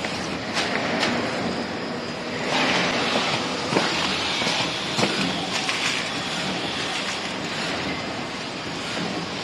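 Automatic cartoning machine for 12-colour plasticine running: a steady mechanical clatter with a few sharp clicks, louder and busier for a few seconds around the middle.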